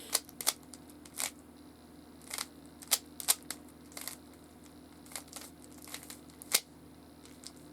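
Rubik's cube being scrambled by hand: its layers are twisted in a run of sharp plastic clicks at irregular intervals, over a steady low hum.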